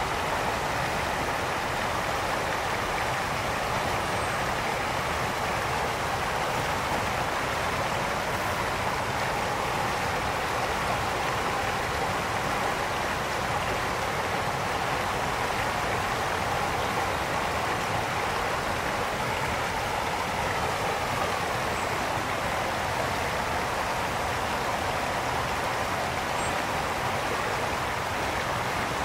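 Brook water rushing and splashing over stones in a steady, unbroken flow.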